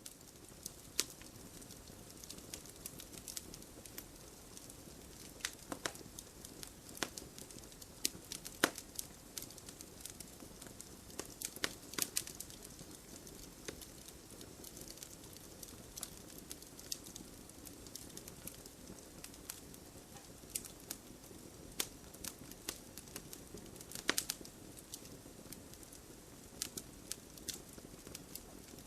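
Wood fire crackling: a steady low hiss of burning logs with irregular sharp pops and snaps, the loudest about a second in, near nine and twelve seconds, and around twenty-four seconds.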